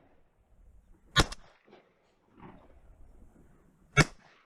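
Shotgun blasts from duck hunters firing at ducks in flight: one about a second in and another near the end.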